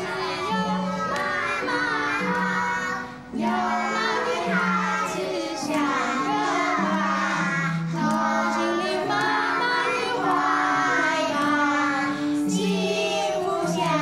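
A group of young children singing a simple song together to piano accompaniment, with a short break about three seconds in.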